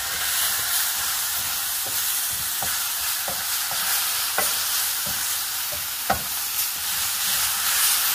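Tomato sauce sizzling on toasted rice and onion in a hot stainless-steel skillet, stirred with a wooden spoon that knocks and scrapes against the pan over and over, one knock louder about six seconds in.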